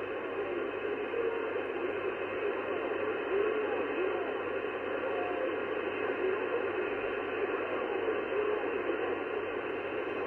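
sBitx shortwave transceiver receiving upper sideband on the 11-metre CB band: steady static hiss through the receiver's narrow voice filter, with faint, garbled traces of a weak distant voice under the noise.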